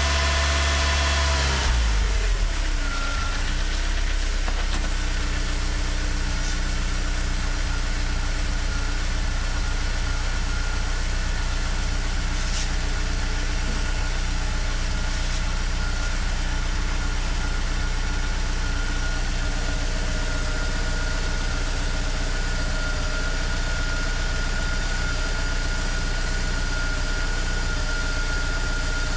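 BMW E36's M43 four-cylinder engine idling steadily. About two seconds in its pitch drops and it settles into a lower, even idle.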